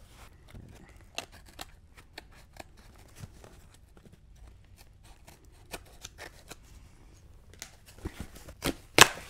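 Cardboard shipping box being carefully cut open along its taped seams, a string of small snips, clicks and scrapes that grows busier near the end, where a sharp crack is the loudest sound.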